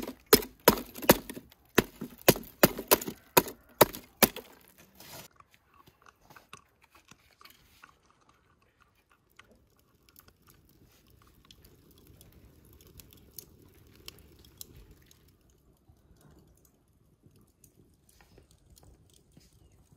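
About a dozen sharp, evenly spaced knocks, two or three a second, over the first four seconds, then faint crackling from a small charcoal and wood fire burning in a clay bucket stove.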